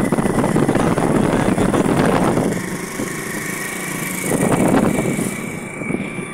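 Motorcycle engine running while riding along a road, heard from on the bike, with road and wind noise and a thin steady whine. The noise eases for a second or so a little past the middle, then picks up again.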